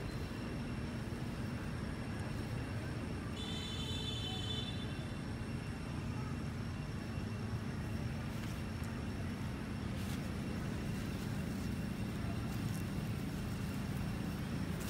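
Steady low background rumble, with one short high chirp about four seconds in.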